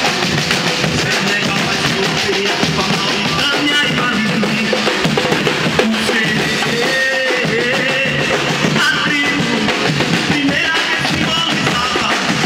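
Drum band playing together: large surdo bass drums and smaller drums beating a steady, dense rhythm.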